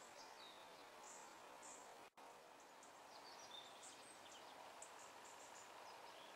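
Faint countryside ambience: a steady low hiss with scattered high, short bird chirps and a few quick falling notes. The sound cuts out for an instant about two seconds in.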